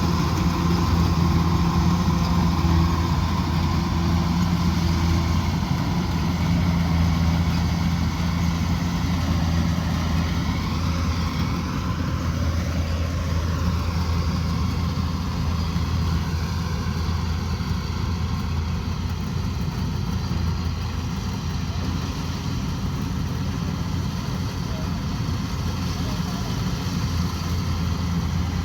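Kubota combine harvester's diesel engine and machinery running steadily with a deep, even hum; the engine note wavers slightly about halfway through.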